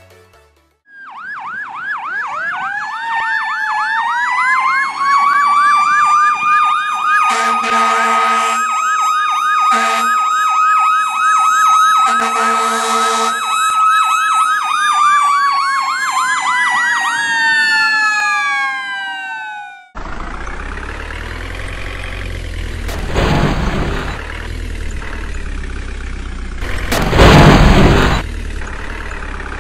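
A fire-engine siren winds up from low to a steady high wail with a fast warble, is cut by two short loud blasts, and winds down near the middle of the clip. It then cuts to a truck engine running steadily, with two louder surges near the end.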